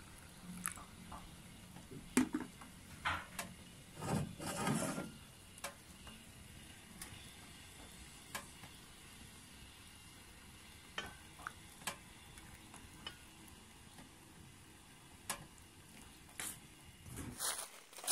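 Tea poured from a spout into a glass teacup, a faint trickle with scattered light clicks of glass and metal, and a louder noisy burst about four seconds in.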